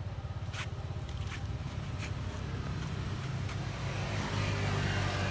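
A motor vehicle's engine running: a steady low hum that grows louder about four seconds in. Four short sharp clicks sound over it.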